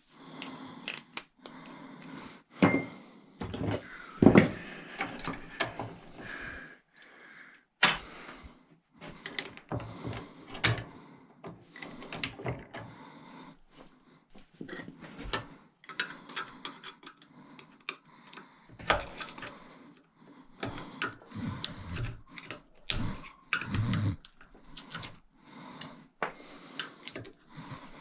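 Small pieces of scrap metal clinking and knocking as they are handled and sorted by hand: an irregular run of sharp clinks and clanks, with a few louder knocks.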